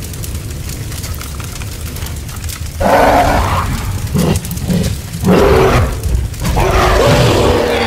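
Low steady rumble, then from about three seconds in a series of loud, pitched, animal-like cries in several bursts.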